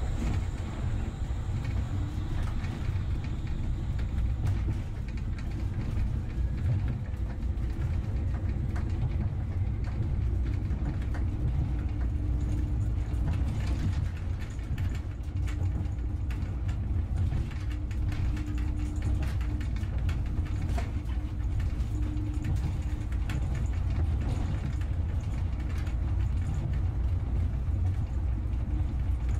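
Vehicle running steadily: a continuous low rumble with faint rattles and clicks.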